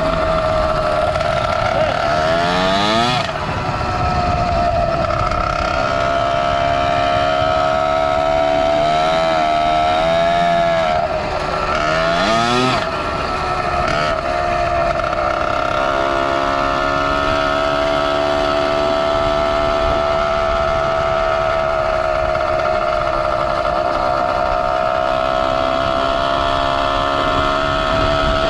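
Zeda 80 two-stroke motorized bicycle engine running under way. Its pitch rises and falls with the throttle several times in the first dozen seconds, then holds a steady high drone, over a low rumble of wind on the microphone.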